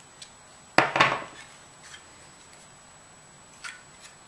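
Husky folding hex-key set set down on a wooden tabletop with a clatter of metal and plastic about a second in, followed by a couple of faint clicks near the end.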